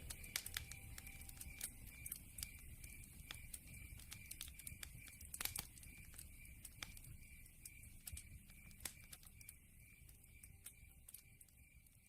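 Campfire crackling faintly: scattered sharp pops and snaps over a low rumble, slowly fading towards the end. A high, thin peep repeats evenly in the background, about two to three times a second.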